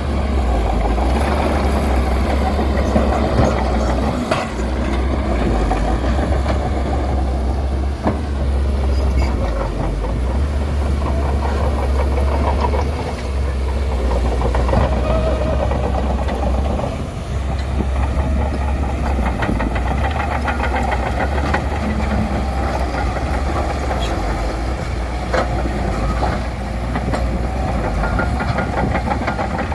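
Bulldozer working: its diesel engine runs steadily under a constant rattle, with a few sharp metallic clanks.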